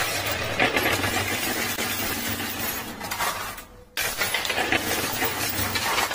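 Coins and plastic poker chips clattering and clinking against each other in a coin pusher machine. The clatter drops away briefly about three and a half seconds in, then comes back abruptly.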